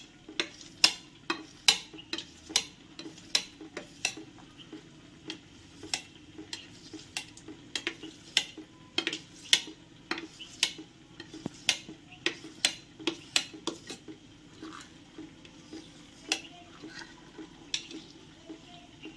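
Kitchen knife cutting set cornflour jelly in a steel plate, the blade tapping and scraping on the metal base with each stroke: sharp clicks about twice a second, fewer near the end.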